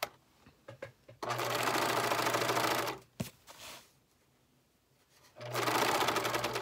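Sewing machine stitching a seam in two runs: the first about a second and a half long, the second starting near the end. A few light clicks come just before the first run.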